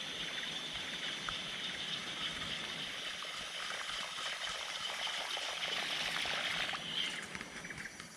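High-pitched drone of cicadas, steady for most of the time and dropping away about seven seconds in.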